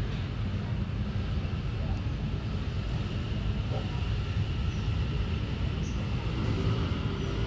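Steady low outdoor background rumble, with a few faint short high chirps in the second half.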